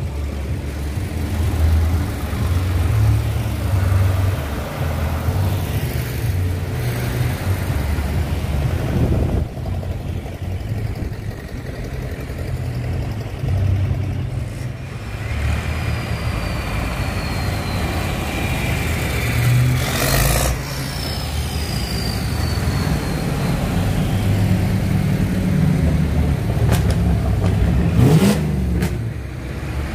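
Tractor engines running as a line of tractors drives past one after another, with a few sharp knocks along the way.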